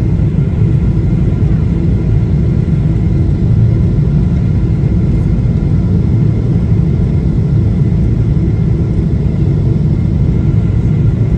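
Steady low rumble of an airliner's jet engines and rushing air heard inside the cabin on final approach, with a faint steady whine above it.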